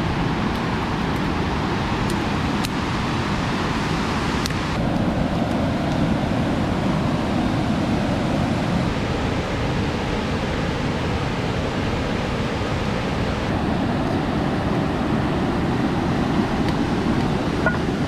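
Steady rush of a swollen, fast-flowing river running high after heavy rain. Its tone shifts abruptly about five seconds in and again near fourteen seconds. A few faint clicks sound in the first five seconds.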